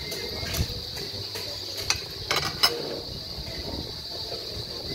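Eating sounds from a hand-eaten meal: chewing and a few sharp clicks and clinks off a plate, the loudest a little past the middle, over a steady high-pitched hiss.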